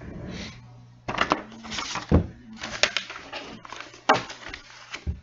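Handling noise: a string of irregular knocks and rustles, with a low steady hum underneath.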